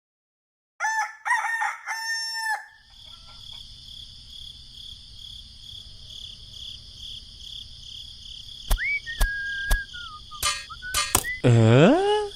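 A rooster crowing in three pitched syllables. It is followed by a steady high chirring background with a few sharp clicks and a short falling whistle. Near the end comes a loud, wavering swoop in pitch.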